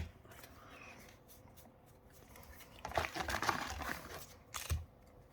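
Foil Pokémon booster pack wrapper being torn open and crinkled: a rustling burst about three seconds in lasting about a second, then a sharp tap.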